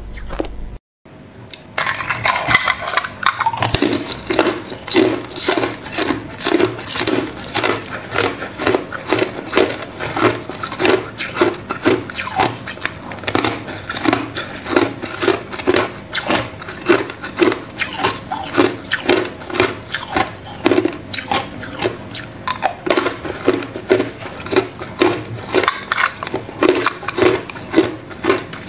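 Hard clear ice bitten and chewed close to the microphone: a continuous run of sharp cracks and crunches, about two a second.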